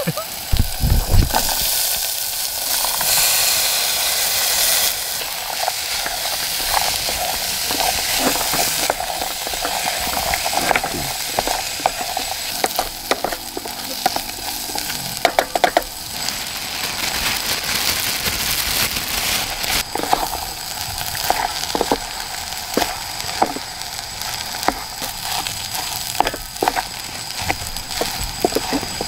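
Food sizzling in hot oil in a small camping pot, chili paste and then vegetables and rice being stir-fried. A wooden spatula scrapes and clicks against the pot throughout. The sizzle is louder for a few seconds about two seconds in.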